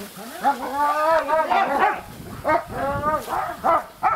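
Dogs barking in a quick run of short, pitched calls.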